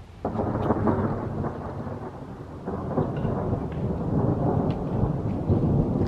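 Thunder from a nearby storm: a rumble that breaks in suddenly and rolls on, swelling again about halfway through.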